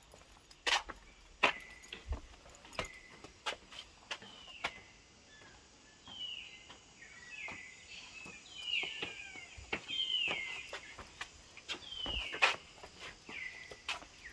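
Footsteps tapping and scuffing on stone paving. Birds call over them again and again in short falling notes, more of them from about six seconds in.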